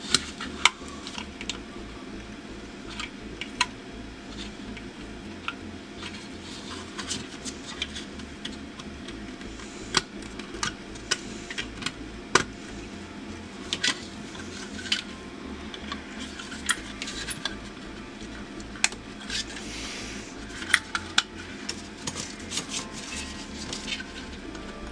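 Hemostats and small metal battery-contact tabs clicking and scraping against the slide viewer's plastic housing as the tabs are bent up and the contact section is worked loose. The clicks come one by one at irregular intervals, over a steady low hum.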